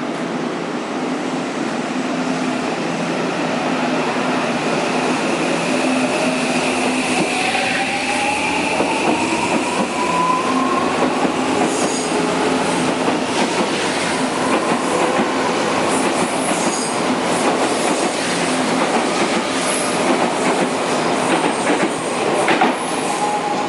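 Odakyu 1000-series electric train pulling out of the station: the motor whine rises in pitch as it accelerates, then many short clacks from the wheels over the rail joints as the cars pass, with some wheel squeal.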